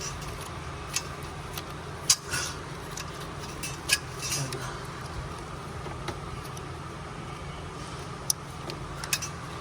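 A few sharp metallic clinks and clicks, spaced irregularly, from bolts and hand tools being handled while engine bolts are fitted, over a steady background hum.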